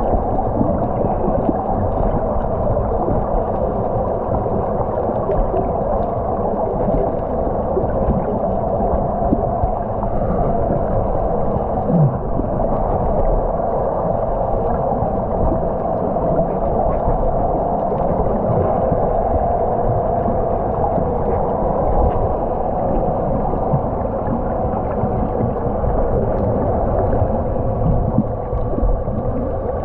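Underwater noise picked up by a camera in its housing: a steady, muffled rush with a faint steady hum running through it.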